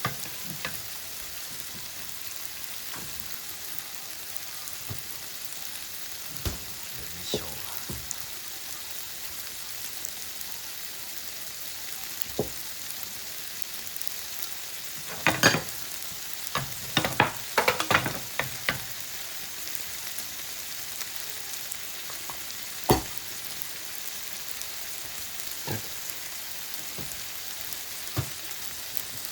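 Yakisoba noodles sizzling steadily on a hot pan or griddle, with scattered sharp scrapes and clanks of a utensil against the metal as they are stirred, busiest about halfway through.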